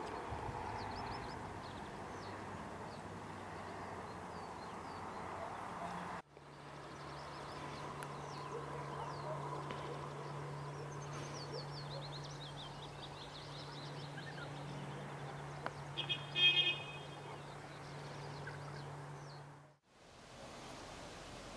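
Outdoor ambience of small birds chirping and calling, with a steady low hum under the middle part. About sixteen seconds in comes a short, louder burst of rapid high notes. The sound cuts abruptly twice, at edits between shots.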